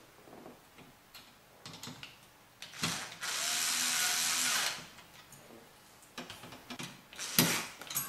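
A small electric screwdriver runs steadily for about two seconds, driving down one of the spring-loaded screws that hold the heatsink on the CPU. Light clicks of the bit and screw come before and after it, with a sharp click near the end.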